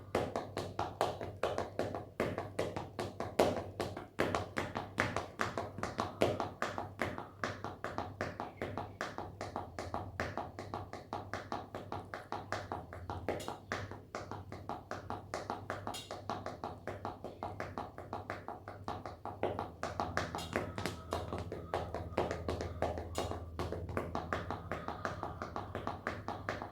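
A foot tapping over and over in a quick, steady run of several taps a second.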